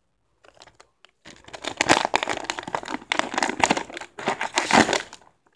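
Foil Pokémon card booster pack being crinkled and torn open by hand: a few faint crackles, then about four seconds of dense, loud crinkling from just over a second in.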